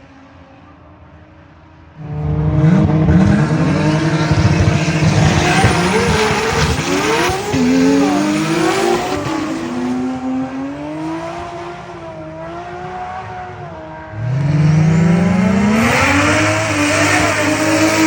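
Performance car engines at full throttle: a low idle, then about two seconds in a sudden loud burst of acceleration with the engine pitch climbing and dropping through gear changes, easing off, and a second hard acceleration with a quickly rising engine note near the end.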